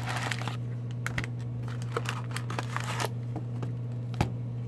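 Cardboard trading-card hobby box being opened and foil card packs handled: rustling and crinkling, loudest in the first half second, then scattered small clicks and crackles. A steady low hum runs underneath.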